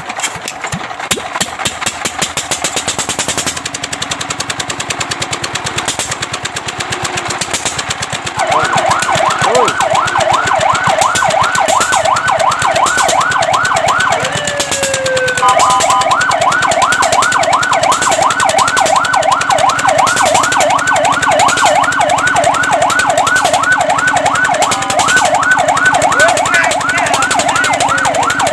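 A running engine with a rapid, even clatter, then a fire truck siren starts about eight seconds in with a fast yelp, sweeping up and down about four times a second. About halfway through it breaks off briefly with a couple of sliding tones before the yelp resumes.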